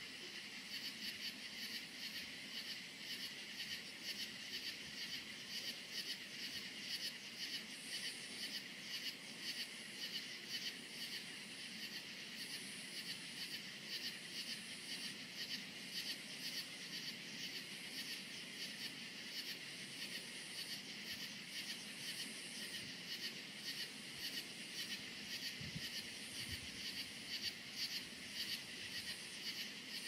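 Crickets chirping in a steady night chorus of rapid, even pulses, with a higher-pitched trill coming and going over it.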